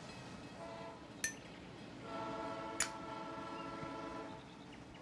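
A train horn sounding in the distance in held chords, a short blast near the start and a longer one from about two seconds in. Two sharp glassy clinks, a little after one second and near three seconds in.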